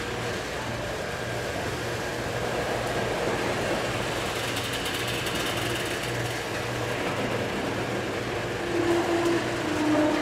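Steady mechanical background noise with a low hum that swells and fades about once a second; a few short steady tones sound near the end.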